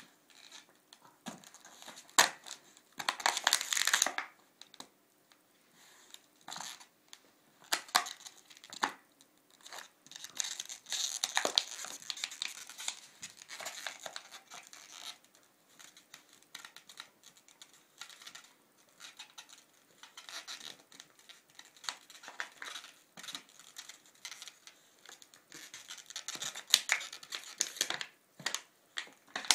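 A Nova Scotia Duck Tolling Retriever chewing and mauling a plush toy, making irregular bursts of crinkling and rustling with short quiet gaps between them.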